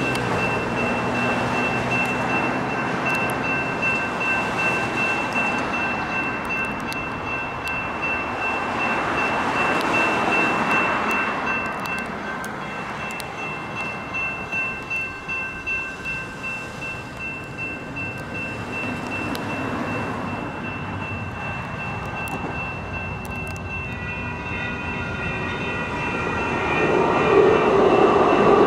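Railroad crossing's GS Type 2 electronic bell ringing steadily as the warning signals are active, over passing road traffic. Near the end a Sacramento RT light rail train arrives and rolls through the crossing, growing louder.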